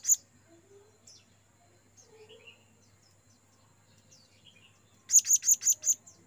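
Blue-crowned hanging parrot (serindit) calling to other birds: one sharp high call at the start, then near the end a fast run of about six shrill calls, some six or seven a second. Faint small chirps come in between.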